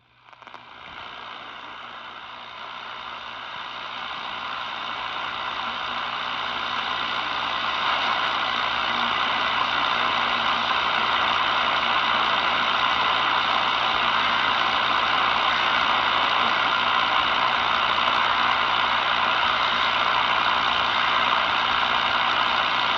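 Steady radio static hiss from a weather radio receiver with no broadcast audio, growing louder over the first several seconds, with a faint low hum underneath.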